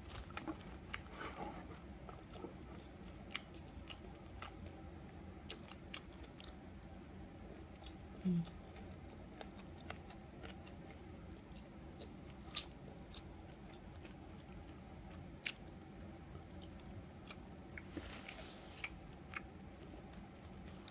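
Close-miked chewing of kimbap, soft and low, with scattered small clicks and taps throughout. A brief hummed voice sound about eight seconds in.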